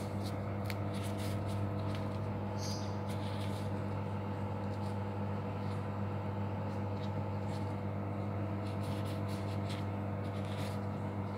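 A steady low hum, like a kitchen appliance running, with light crinkling and rustling from plastic food-prep gloves handling parsley and bread.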